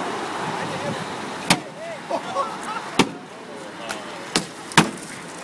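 Sledgehammers striking a BMW M6: four loud, sharp blows at uneven intervals, the last two in quick succession, over a background of street noise and onlookers' voices.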